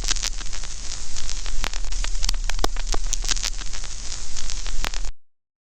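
Crackling static: a steady hiss peppered with sharp, irregular clicks over a low hum, cutting off abruptly about five seconds in.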